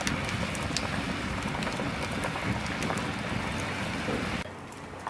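Beef stew bubbling in a three-legged cast iron pot hung over an open hearth fire: a dense, even hiss with a few sharp pops. It stops suddenly about four and a half seconds in.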